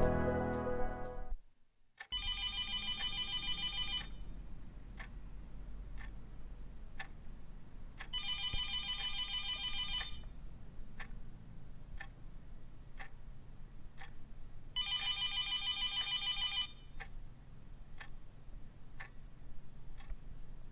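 Telephone ringing three times, each ring about two seconds long and about six seconds apart, with a faint tick about once a second between rings over a low room hum. Soft music fades out just before the first ring.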